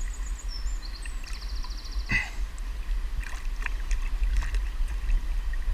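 Shallow river water trickling and gurgling around hands holding a brown trout in the current.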